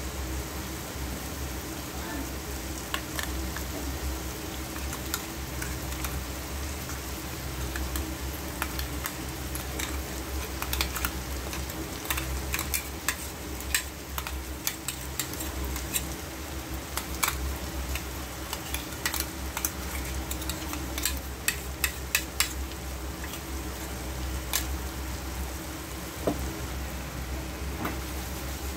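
A spoon or spatula stirring food frying in a pan: sharp taps and scrapes of the utensil against the pan over a steady sizzle. The taps come thickest through the middle of the stretch.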